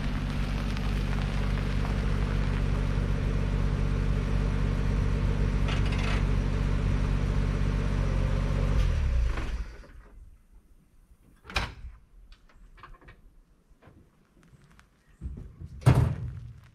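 Engine of a 1959 NAPCO Chevrolet Apache 3800 one-ton four-wheel-drive pickup running steadily as the truck pulls up, then switched off about nine and a half seconds in. After that come a sharp click, a few small knocks, and the driver's door opening with a thunk near the end.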